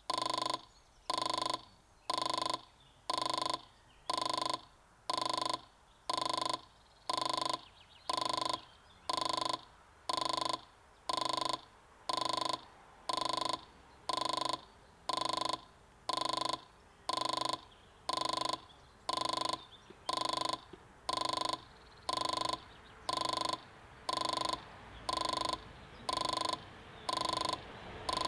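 Level-crossing warning bell striking steadily about once a second, each strike a short ringing tone, sounding while the barriers are down. Near the end the rumble of an approaching train grows.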